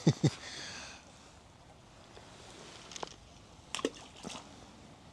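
Fishing rod and tackle being handled: a couple of soft knocks right at the start. Then a faint quiet background with a few light clicks about three and four seconds in.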